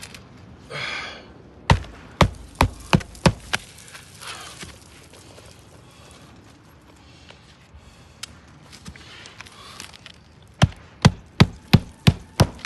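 Hammer driving roofing nails through an asphalt shingle, tacking a replacement shingle in place: a quick run of about six blows a couple of seconds in, then about seven more near the end.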